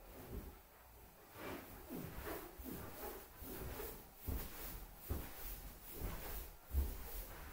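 Faint rubbing and handling sounds with a few dull low thumps, the strongest near the end; no balloon pops.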